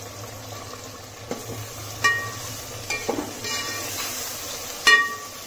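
Onion and ginger-garlic masala sizzling in hot oil in a pot while being stirred, with a metal spoon clinking against the pot a few times, the loudest near the end.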